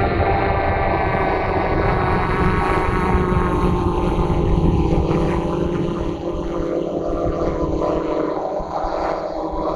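Electric motors and propellers of a small remote-controlled aircraft whining steadily, picked up by the onboard camera's microphone, with wind buffeting the microphone. The low rumble eases off a little after about six seconds.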